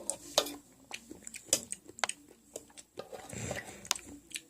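Eating at close range: irregular sharp clicks of utensils against a dish mixed with soft chewing.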